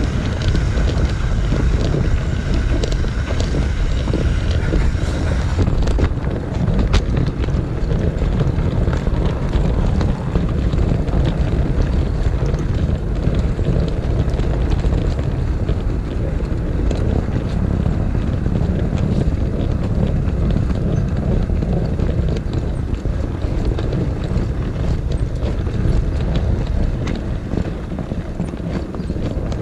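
Steady rumble of an O gauge model train running along its garden track, heard from a camera riding on the train, with many faint clicks from the wheels on the rails. A faint high whine fades out after about five seconds.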